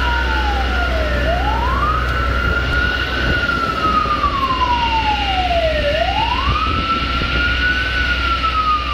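Emergency vehicle siren wailing slowly. In each cycle of about four to five seconds it rises quickly in pitch, then falls slowly, with a steady high tone and a steady low rumble under it.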